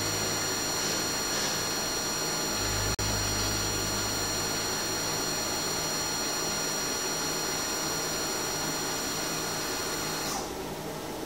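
Takisawa EX-510 CNC lathe running a hexagon-milling cycle on a screw head: steady machine noise with several high steady whines. A low hum drops out a couple of seconds in, and the whines stop about ten seconds in, leaving quieter machine noise.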